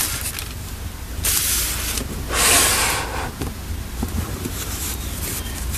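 Packaging being handled and opened: rustling and sliding, with two longer swishes about a second and a half and two and a half seconds in, and small clicks and taps between.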